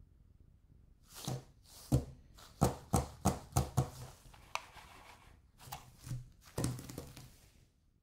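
Gloved hands knocking and brushing on a tabletop: a series of soft thumps and knocks, a quick run of them in the middle and another cluster near the end, with a few rustles of fabric.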